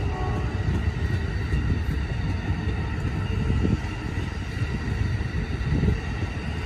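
Amtrak Silver Star's single-level passenger cars rolling past at speed: a steady rumble of wheels on the rails.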